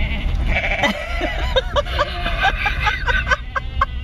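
A large mob of sheep bleating, many short calls overlapping, growing denser after about a second, heard from inside a car following them, with a low steady rumble underneath.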